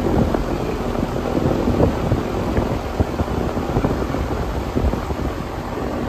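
Outdoor air-conditioner condenser unit running, its fan blowing a steady rush of air up through the top grille with a low hum. The unit runs but is not cooling the house: its discharge air is only about 90 °F, showing little heat being carried out.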